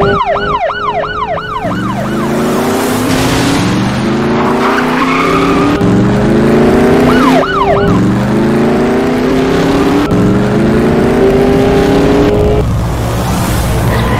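A car engine accelerating hard, its pitch climbing over and over as it shifts up through the gears. A police siren's fast yelp sounds for under two seconds at the start and again briefly about seven seconds in.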